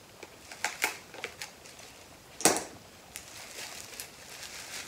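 Scissors cutting open the shiny bubble wrap around a potted plant, the plastic crinkling and crackling: a few sharp clicks about a second in, a louder crackle about halfway through, then softer crinkling.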